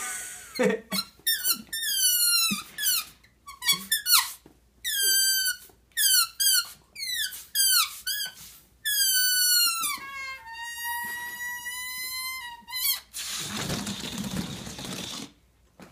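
Air escaping through the stretched neck of an inflated rubber balloon, pinched between the fingers, making a run of short squeals that mostly fall in pitch, then a longer, steadier squeal. Near the end the balloon is let go and there is a rush of air.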